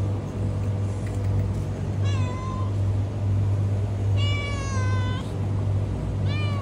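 Stray cat meowing three times: a short meow about two seconds in, a longer one falling in pitch a little past the middle, and a short one at the end, over a steady low hum.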